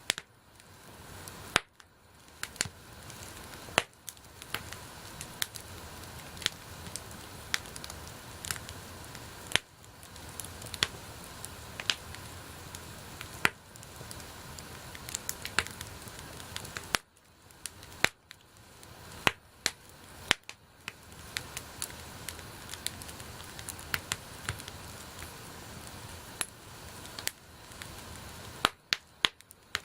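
Wood campfire burning: a steady hiss with frequent irregular sharp pops and crackles from the burning wood.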